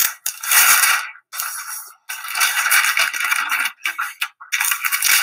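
Wrapping paper crinkling and rustling as it is handled around a box, in several loud bursts a second or so long with short breaks between.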